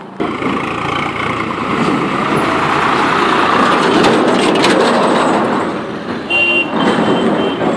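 A goods truck passing close by, its engine and tyres loudest about four seconds in, with a few sharp knocks as it goes past. A brief high tone sounds near the end.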